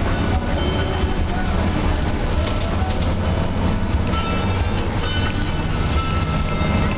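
Cabin noise of an intercity bus driving at speed: a steady low engine drone and road rumble, with scattered small rattles and brief squeaks from the body.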